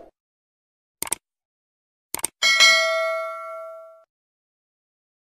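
Subscribe-button animation sound effects: a quick double mouse-click about a second in, another just after two seconds, then a bright notification-bell ding that rings out for about a second and a half.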